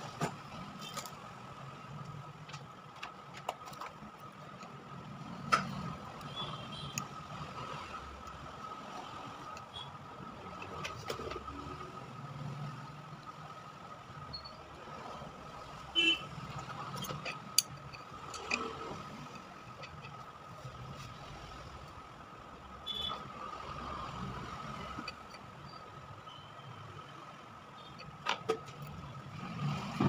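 Occasional sharp clicks and taps from a phone circuit board and tools being handled on a workbench, over a steady low background hum with a faint high whine.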